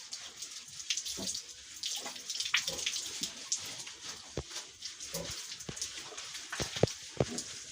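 Water splashing as a sow is washed, a steady hiss of water with scattered short splashes and knocks.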